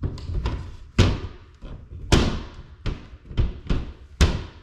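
White plastic shower access panel knocked and pressed by hand against its frame: a series of sharp knocks and clicks of uneven strength, the loudest about a second in, about two seconds in and near the end.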